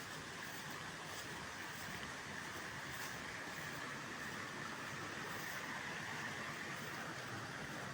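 Steady outdoor nature ambience: a constant hiss with an even high-pitched drone running through it and no sudden sounds.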